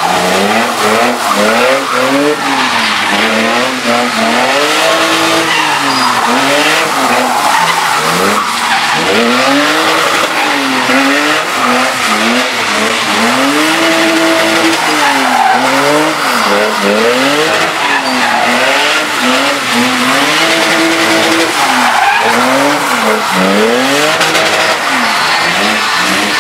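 A car doing donuts: its engine revs up and falls back again and again, about every second or two, while the tyres screech throughout.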